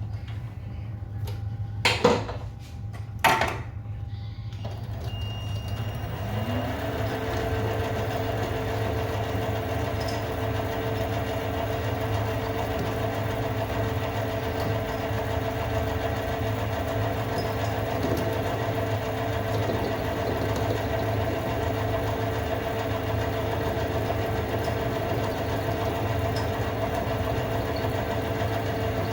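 Two sharp clicks, then a small electric motor spins up about six seconds in and runs at a steady speed.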